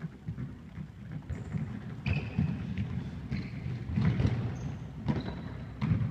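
Running footsteps and ball thuds on a sports hall floor, echoing through the hall, with several sharp knocks and short, high squeaks of shoes on the court.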